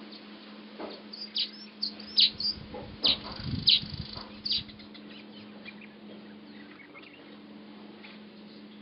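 Weaver bird giving a quick run of sharp, high, downward-sliding chirps starting about a second in and lasting some three seconds.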